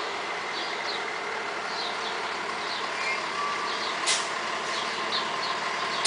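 Steady drone of busy street traffic, with a small bird giving repeated short, high chirps over it. A brief sharp hiss cuts in about four seconds in.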